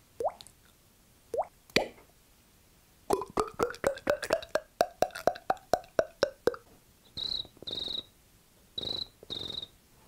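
A beatboxer imitating water with his mouth into a microphone: a few single pops rising in pitch like falling water drops, then a rapid run of pops whose pitch rises like water being poured, then four short hisses.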